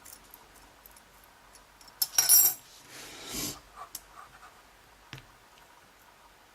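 Abus E60 padlock being gutted: two short scraping rushes as the plug is drawn out of the lock body, followed by a few light clicks of small pins dropping out.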